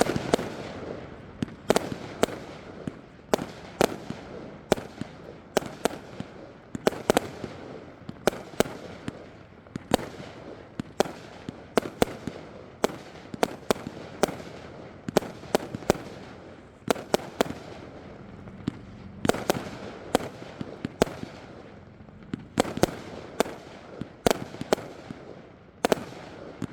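Consumer fireworks cake, the GOAT 108-shot, firing a steady run of sharp bangs, often in pairs, roughly one every three-quarters of a second, each trailing off briefly.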